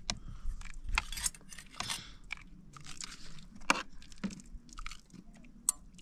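Someone eating crunchy food: irregular crunches and small clicks of chewing, with one sharper crack a little past the middle.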